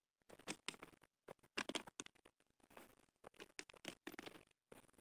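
Footsteps crunching on the gravel ballast of a railway track, a faint, irregular series of steps.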